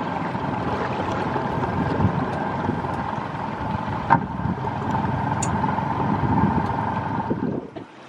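A boat's engine running steadily under way, a rumble with a steady whine, with wind noise on the microphone. The sound drops away briefly near the end.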